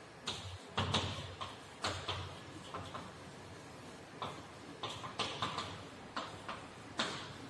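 Chalk tapping and scraping on a blackboard as a line of text is written: irregular short taps, a couple to three each second.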